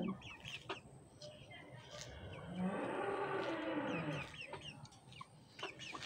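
A cow mooing once, a long call about two seconds long that rises and then falls in pitch, midway through. Chicks peep in short high notes around it.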